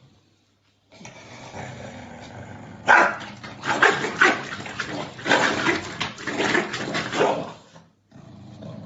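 An animal calling: a run of loud, harsh, irregular calls over a steady hiss, starting about three seconds in and stopping shortly before the end.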